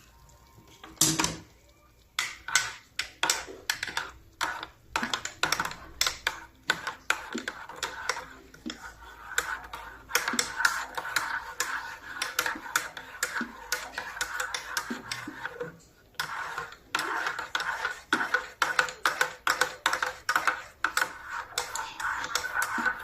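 Rapid, irregular tapping and clicking, several sharp taps a second, with a short pause about two-thirds of the way through and a steady hiss underneath in the second half.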